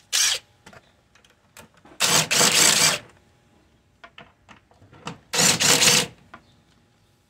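Ridgid cordless driver with a 10 mm socket running in a short burst, then two bursts of about a second each, backing out the two 10 mm bolts of the air filter housing.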